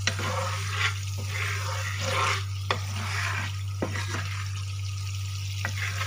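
A wooden spatula stirring and scraping through bubbling teriyaki sauce in a nonstick frying pan: repeated hissing swishes with a few sharp taps of the spatula on the pan, over a steady low hum.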